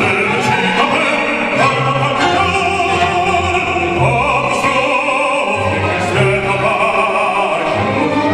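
Operatic singing: a classically trained voice holding sustained notes with vibrato over instrumental accompaniment.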